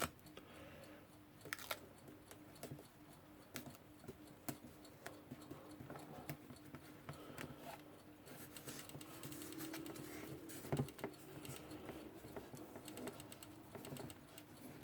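Faint handling of adhesive tape being pulled off and pressed down around the clock glass: irregular small clicks and crackles, with a longer crackly rustle from about eight seconds in.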